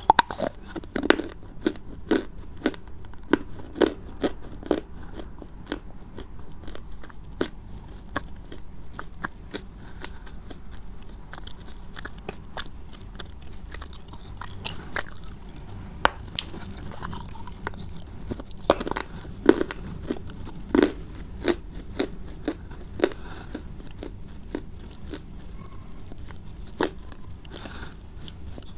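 Close-miked crunchy food being bitten and chewed: crisp, sharp cracks that come in bursts, densest in the first few seconds and again about two-thirds of the way through, with quieter chewing between.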